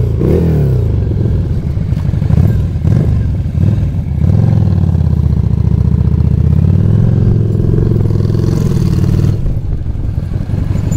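Motorcycle engine running under way, heard from the seat, its pitch falling and rising with the throttle. It gets louder about four seconds in, holds steady, then eases off near the end.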